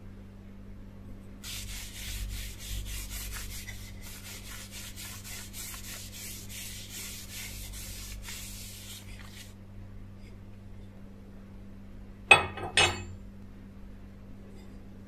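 A paper towel rubbing oil into a wooden knife handle: a run of quick wiping strokes lasting about eight seconds. Then two sharp knocks about half a second apart, the loudest sounds, over a steady low hum.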